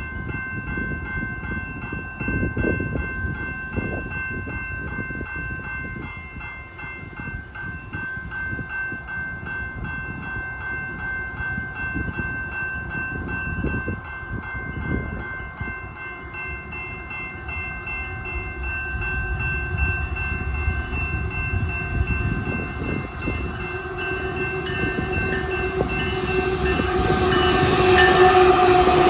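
Railroad crossing bell ringing steadily at an active level crossing while a freight train's diesel locomotives approach. The locomotives grow louder over the last few seconds as they reach the crossing.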